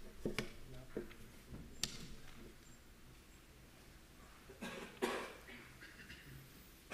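Faint hall sounds: a few sharp clicks and knocks from a laptop being handled at a lectern, with indistinct voices and a short louder sound about five seconds in.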